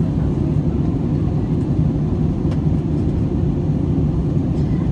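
Steady low rumble of an Airbus A320-family airliner's cabin in cruise: engine and airflow noise heard from inside the passenger cabin.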